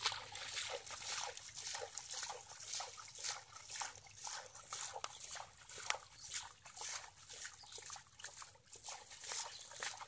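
Wet mud and muddy water squelching and splashing as bare hands dig and scoop in a shallow mud pond, a steady run of irregular small wet slaps and crackles.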